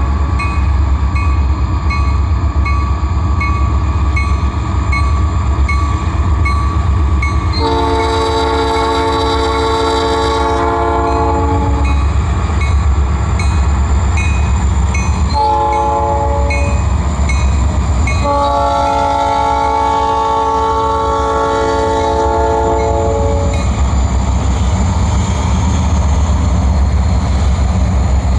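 Buffalo & Pittsburgh diesel locomotives pulling a freight train, their engines rumbling steadily as they pass, while the multi-tone air horn sounds a long blast, a short one and a long one: the end of the grade-crossing signal. A bell rings steadily through the first half.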